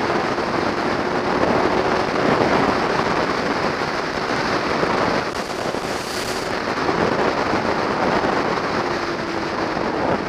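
Motorcycle at speed, its engine a faint steady hum under loud, crackling wind buffeting on the microphone.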